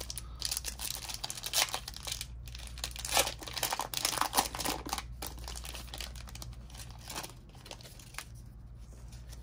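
Card-pack wrapper crinkling and tearing as a pack of baseball cards is opened by hand, in irregular bursts of rustling for about seven seconds, then quieter handling near the end.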